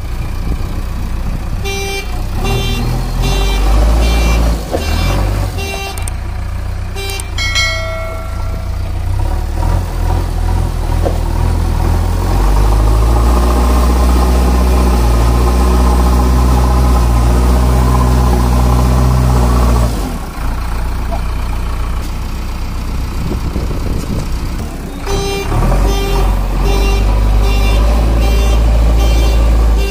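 Dubbed vehicle engine sound effect running steadily, with a string of short tooting beeps about two a second in the first few seconds and again near the end.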